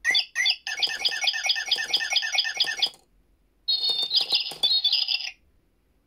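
Sound-activated toy bird in a plastic birdcage chirping electronically: a couple of short chirps, then a fast run of repeated chirps, about nine a second, for a little over two seconds. After a short pause comes a warbling trill lasting about a second and a half.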